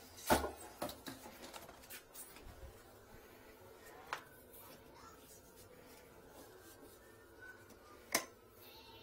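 Handling of a pipe inspection camera kit in its hard case: a sharp knock just after the start and a few lighter clicks in the next second, then single clicks about four seconds in and near the end, over quiet room tone.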